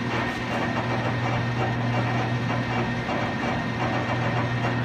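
Colchester model 1400 engine lathe running, with its spindle turning and the cross slide feeding in: a steady mechanical hum with a constant low tone.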